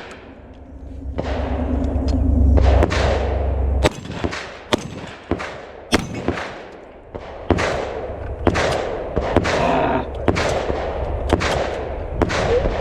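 Shotgun fired in a fast string of about ten shots at uneven spacing, the first about four seconds in, each shot followed by a short echo: a timed stage of shooting at steel targets.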